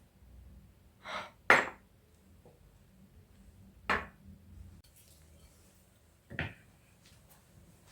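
Household objects being handled: four short knocks and clinks a few seconds apart, the loudest about a second and a half in.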